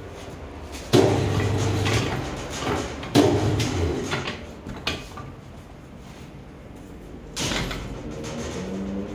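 Tyre changer machine working on a car tyre on a steel wheel: two loud sudden mechanical sounds, about a second in and again about three seconds in, each lasting about a second, then another near the end as the mount head comes down onto the rim.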